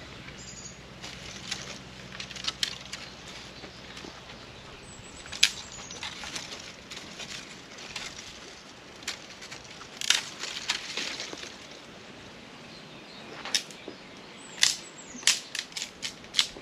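Dry sticks and brush crackling and snapping in irregular sharp cracks, with a quick run of louder snaps near the end.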